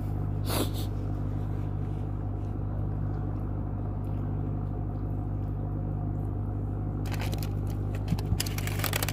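A steady, low mechanical hum, with a single sharp click about half a second in and a quick cluster of sharp clicks near the end.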